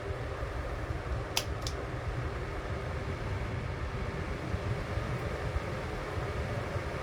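Electric desk fan running with a steady whoosh of moving air and a low rumble. Two short sharp clicks come about a second and a half in.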